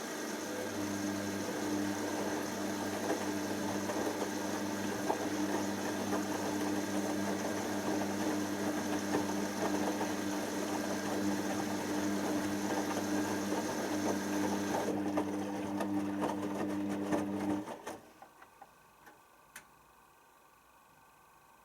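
Hoover DYN7144XD1 washing machine running with a steady, even-pitched electric hum, which cuts off suddenly about 18 seconds in, followed by a few faint clicks.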